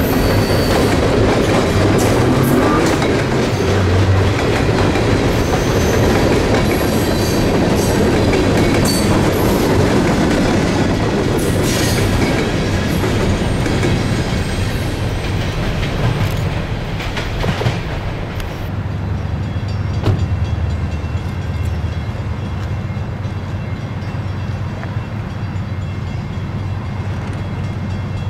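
Freight cars rolling past, their wheels clattering over the rail joints. The sound drops away about two-thirds of the way through as the end of the train passes, leaving a quieter steady low rumble.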